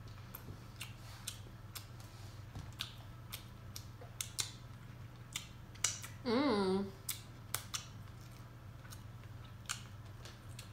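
A person eating a seafood boil up close to the microphone: irregular wet chewing and lip-smacking clicks. Once, about six seconds in, a brief voiced sound cuts in.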